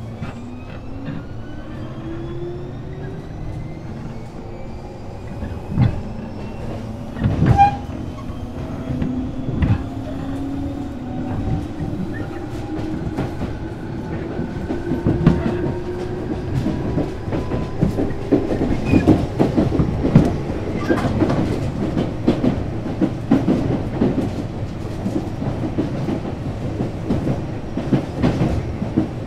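Tobu 8000-series electric train, heard aboard motor car MoHa 8276, pulling away and accelerating. The traction motors give a rising growl, said to resemble the old Keisei Mitsubishi-equipped red cars, and the wheels clack over rail joints more and more often as speed builds.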